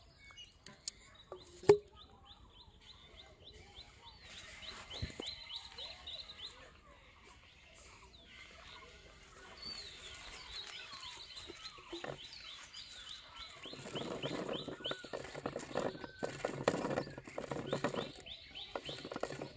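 A bird repeating fast, high chirping trills in runs, with a single sharp click about two seconds in. In the last few seconds comes a louder stretch of rustling, scraping noise.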